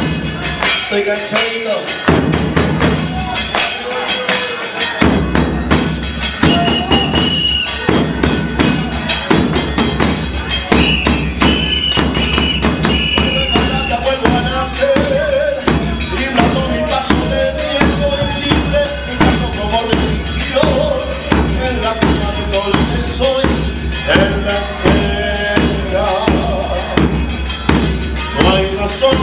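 Live murga music from the stage: bombos with cymbals beating a fast, even rhythm, with voices joining in.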